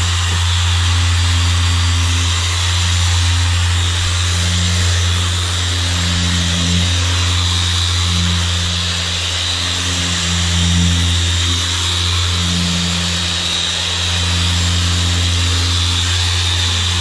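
Harbor Freight dual-action polisher running steadily with a 4-inch foam pad, polishing a jet ski's hull: a strong low hum under a high whine, wavering slightly in tone as it is worked.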